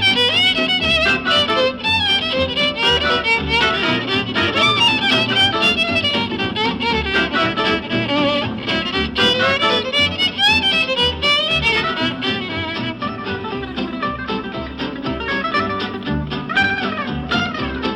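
Instrumental jazz with a lead violin over guitar and a steady bass beat.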